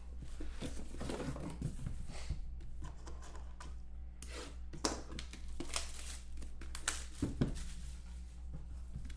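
Cardboard rustling and scraping in bursts as a sealed trading-card box is slid out of a cardboard shipping case and set down.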